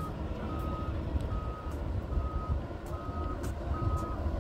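An electronic warning beeper sounds a steady high beep about once every 0.8 seconds, five or six times, over a low rumble of background noise.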